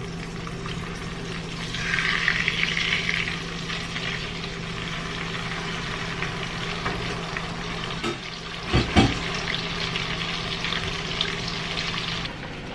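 Kingfish frying in hot oil, a steady dense sizzle that swells louder about two seconds in, with a steady low hum underneath. A couple of low knocks about nine seconds in.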